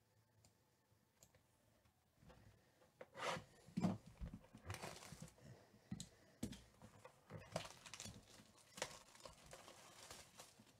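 Hands handling and turning a shrink-wrapped cardboard hobby box of baseball cards. Faint, irregular rustling, scraping and light knocks start about two seconds in.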